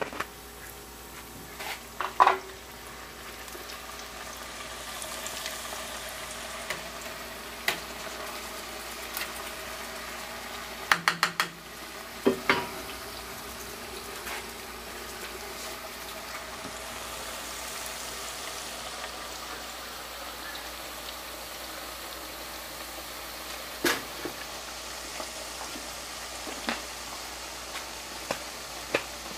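Hot oil sizzling steadily as tortilla chips fry, with a few sharp clicks and clinks, including a quick run of them about eleven seconds in.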